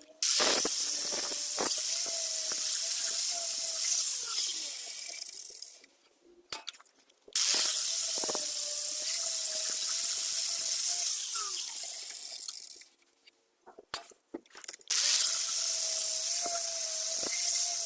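Three long bursts of steady high hissing from a tool, each starting and stopping abruptly, with a faint steady tone under the hiss and short silent gaps between bursts.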